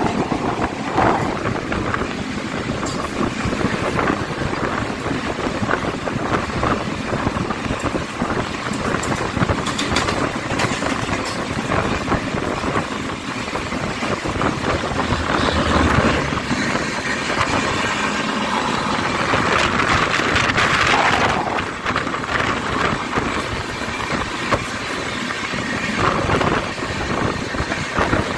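Mumbai suburban local train running, heard from its open doorway: a steady loud rush of wheels on rail and wind with a constant patter of rail clicks, swelling louder and brighter for a few seconds a little past the middle before dropping back.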